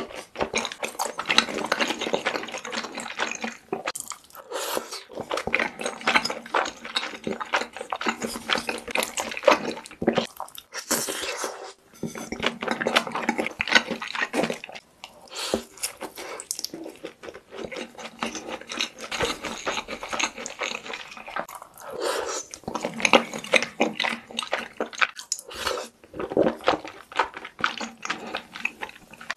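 Close-miked wet chewing and mouth smacking of short pasta in a thick cream sauce: many quick, sticky clicks in a steady run, broken by a few short pauses between bites.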